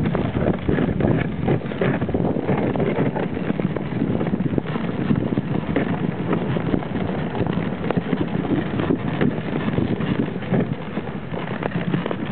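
Dog sled moving over a packed snow trail: runners scraping and the sled rattling with many small knocks, and wind buffeting the microphone.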